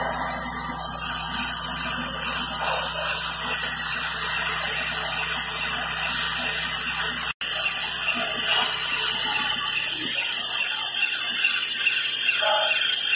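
Syringe assembly machine running: a steady hiss-like mechanical noise with a low hum, breaking off for an instant about seven seconds in. Near the end the hum fades and light clicks come through.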